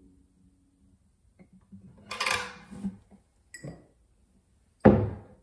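The last chord of an acoustic guitar rings out and fades in the first second. It is followed by rustling handling noises and, near the end, one sharp knock.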